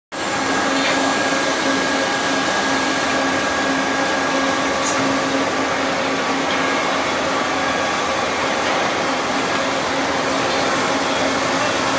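Index MS42C CNC multi-spindle lathe running: a steady mechanical whir with a few held tones over an even wash of noise.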